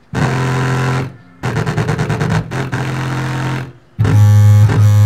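Subwoofer fed by an NE5532 low-pass filter and TDA7294 amplifier playing loud bass-heavy audio during a bass-response test. It comes in three stretches that start and stop abruptly, each built on a deep held bass note with overtones, the middle one rhythmic.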